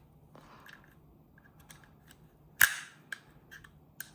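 One sharp metallic click about two and a half seconds in, with a few lighter taps after it, from handling the metal parts of a GHK HK416A5 gas-blowback airsoft rifle.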